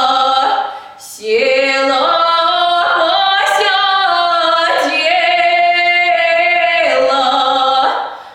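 A woman singing solo without accompaniment, holding long sustained notes, with a short break for breath about a second in and another near the end.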